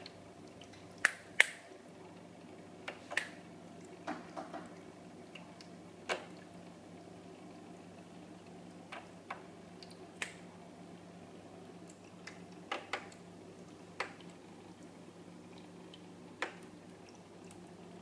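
Electric pet water fountain running: a steady low pump hum under about a dozen scattered, sharp water drips and plinks, the loudest about a second in.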